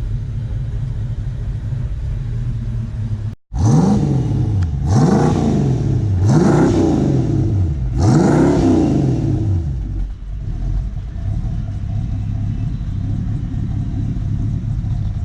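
Old carbureted pickup truck engine idling with a deep rumble, then blipped four times in a row, each rev rising and falling back over about a second and a half, before settling back to idle.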